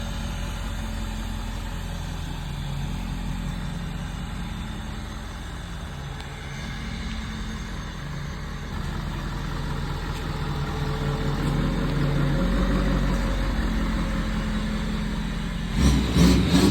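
2016 Ford F-350 pickup's engine running as the truck is moved a short distance, getting somewhat louder partway through. A few sharp knocks near the end.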